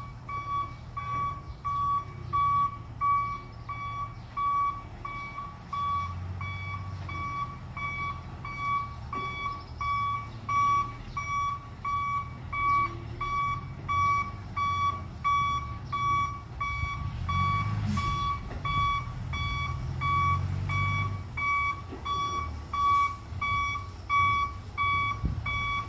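A dump truck's reversing alarm beeping steadily at one pitch, about two beeps a second, as the loaded truck backs up. Its diesel engine runs underneath and swells a couple of times.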